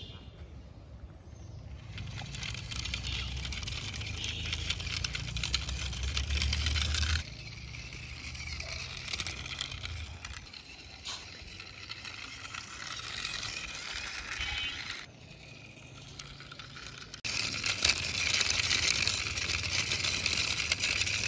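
Toy cement mixer truck's wheels rolling and grinding over rough concrete as it is pushed by hand. The rolling comes in three long pushes with short pauses between them.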